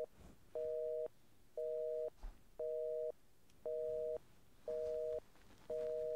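Telephone busy signal: two steady tones sounding together in short beeps, about one a second, half a second on and half a second off, the pattern of the North American busy tone.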